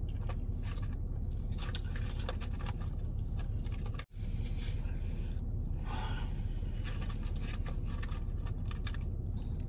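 Fingers picking through a paperboard fry carton: light rustling and scraping over a steady low rumble, with a brief dropout about four seconds in.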